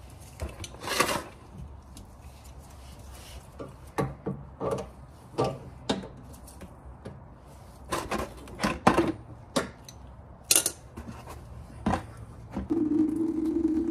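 Scattered knocks, clicks and scrapes of a hand tool working a car radiator's drain plug and a plastic bucket being handled beneath it, to drain the coolant. Near the end a steady low tone begins and keeps going.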